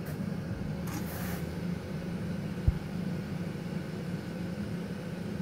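Steady low machine hum of running equipment in the shop, with a short rustle about a second in and one dull knock about halfway through.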